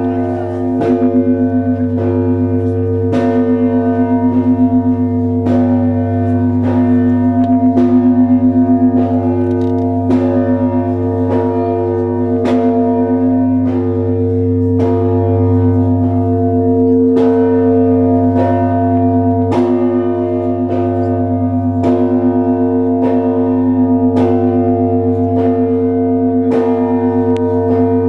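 Russian Orthodox church bells of the Trinity Lavra of St. Sergius belfry ringing in a peal: smaller bells struck in quick succession, about once or twice a second, over the steady hum of a large bell.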